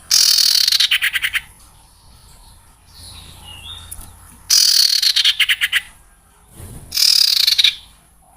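Recorded lure call of a sirtu owl: three loud, harsh rasping screeches, each about a second long and breaking into a fast stutter at its end.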